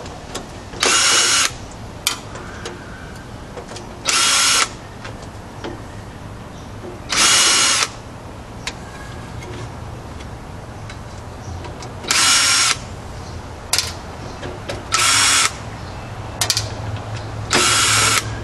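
Cordless drill-driver run in six short bursts of about half a second each, backing screws out of a computer tower's metal drive bays. A few light clicks fall between the bursts.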